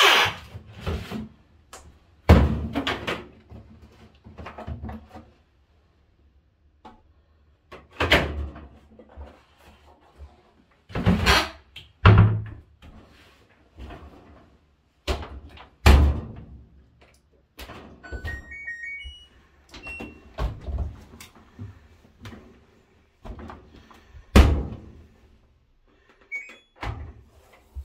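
Knocks and thumps of handling at a washing machine, with a short run of control-panel beeps stepping up in pitch about eighteen seconds in and one more beep near the end.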